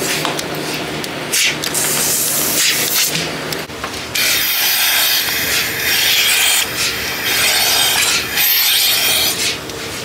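Milking unit hissing as vacuum sucks air through the open teat cups while they are put onto a cow's udder: a short hiss about a second in, then a longer one from about four seconds until near the end. A steady low hum runs underneath.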